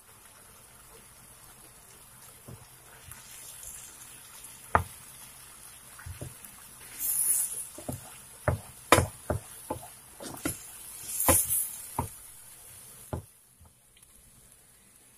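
Wooden spatula knocking and scraping against a frying pan while stirring scrambled egg into sautéed bitter gourd, over a light sizzle. Two longer scraping spells come about 7 and 11 seconds in, and the sounds stop shortly before the end.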